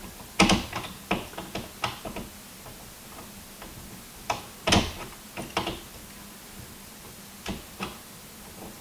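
Irregular sharp clicks and knocks of hand tools and wire being worked in a household electrical panel, as a wire is fitted into a circuit breaker's terminal; the loudest come about half a second in and just before 5 seconds, with a faint steady hum underneath.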